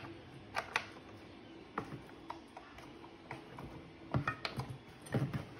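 Scattered clicks and knocks from the plastic leg joint of a large 8-foot spider decoration being handled and moved, with a denser cluster of clicks about four seconds in.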